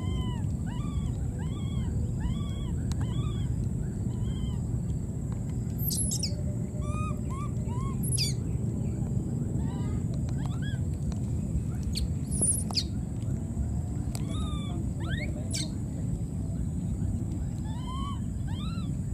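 Baby monkeys crying: a run of short, high, arching calls, about two a second for the first four seconds, then scattered single calls, over a steady low rumble.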